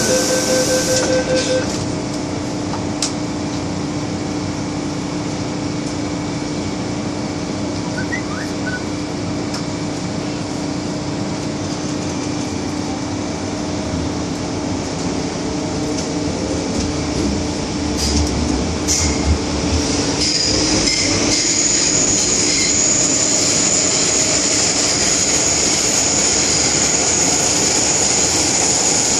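MTR Kwun Tong line M-Train electric multiple unit running, a steady rumble with a low steady hum. About twenty seconds in, a high, steady whine joins in.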